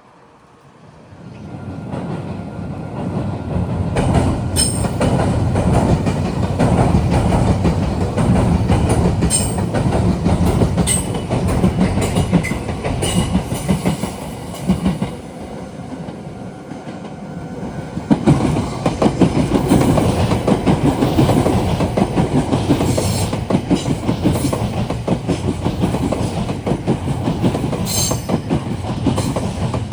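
Meitetsu electric train running past at close range, its wheels clattering rhythmically over the rail joints. The sound builds over the first few seconds, eases about fifteen seconds in, and swells again from about eighteen seconds, with a few sharp high squeaks from the wheels.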